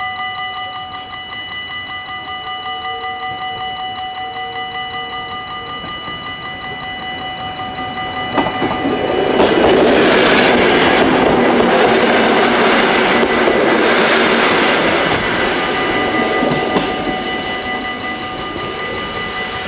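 Level-crossing bells ringing with a rapid, even pulse, while a yellow NS mat'64 electric multiple unit passes close by. Its running noise swells loud about eight seconds in and fades after about six seconds, leaving the bells ringing.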